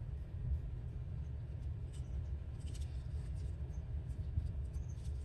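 Steady low hum with faint paper rustles and small taps from scraps being handled and placed, a few of them about two and three seconds in.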